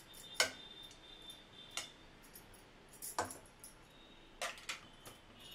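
Steel ladle clinking against the rim and sides of a non-stick pot of fried rice: five sharp, separate clicks spaced about a second apart, the first the loudest.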